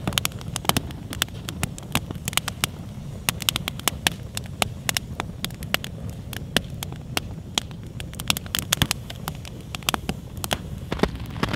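Small campfire of cedar twigs and sticks crackling in a steel fire pit, with frequent, irregular sharp pops and snaps over a low steady rumble. A brief louder rush comes near the end.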